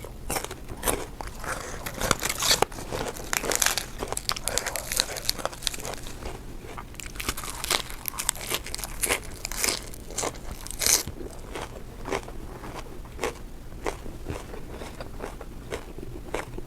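A person chewing and crunching food, a dense run of crisp crunching bites that thins out after about eleven seconds into slower, scattered chewing.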